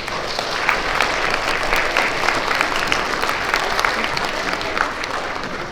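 Audience of young children and adults applauding in a school assembly hall, many hands clapping at once.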